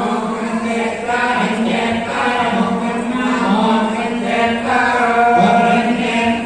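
A group of women's voices chanting a Hindu devotional recitation in unison, in continuous sing-song phrases, as in a kumkumarchana.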